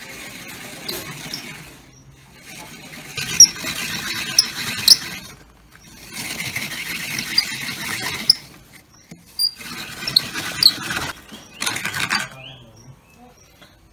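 Hand-cranked, table-clamped coconut scraper grating the white flesh out of a half coconut into a metal bowl. It rasps in four or five bursts of about two seconds each as the crank is turned, with short high squeaks.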